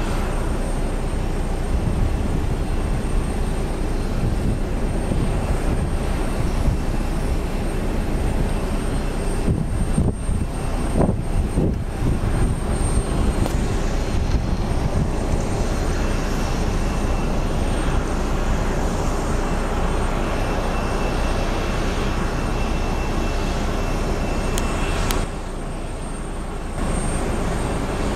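Jet airliner engines running, a steady rumble of engine noise with a thin high whine over it. The sound dips briefly near the end.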